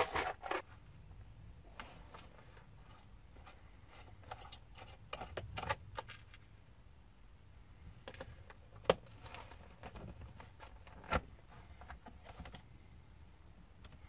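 Small screwdriver backing out the screws on the underside of a Lenovo G510 laptop. Scattered clicks and light metallic clinks come from the screws and the plastic base cover being handled and lifted off, with a sharper click about nine seconds in and another about eleven.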